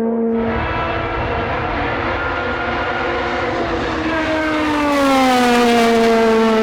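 Time attack race car engine running at high revs. A rougher, noisier exhaust layer comes in about half a second in, and near the end the engine note falls and levels off.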